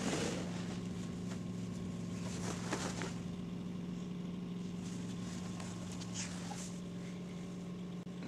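A steady low hum, with a sharp knock at the very start and a few faint rustles.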